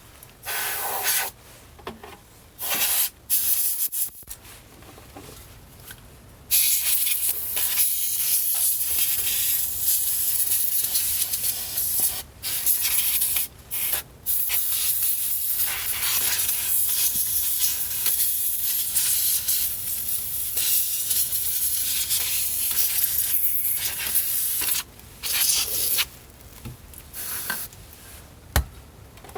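Can of compressed air blowing dust out of the inside of a boombox. It gives several short bursts of hiss, then a long, nearly continuous hiss broken by a few brief pauses, and then a couple more short bursts near the end.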